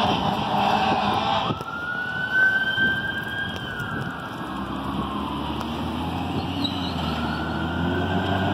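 Fire engine siren wailing on an emergency run, over the truck's engine. The siren pattern changes abruptly about a second and a half in, then climbs, slowly falls and climbs again near the end.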